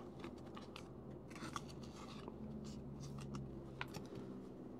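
Glossy trading cards being flipped and slid against each other in the hands: faint, quick flicks and short scrapes of card stock, scattered irregularly.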